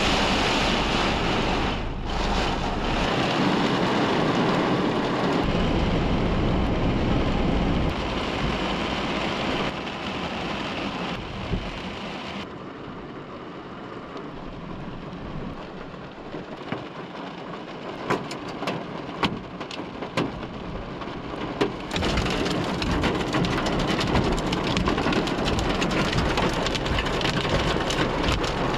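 Heavy rain falling on a car, with low thunder rumbling. About midway the rain is lighter, with a few sharp taps of drops close by, and near the end heavy rain on the car is loud again.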